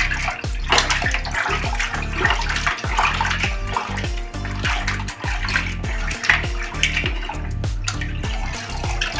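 Water splashing and sloshing in a plastic basin as hands rub and wash cut fish pieces, over background music with a low bass line.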